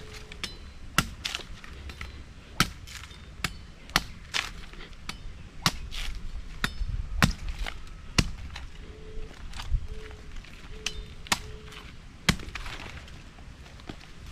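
Machete blows chopping into coconuts: a run of sharp, irregular strikes, about one a second.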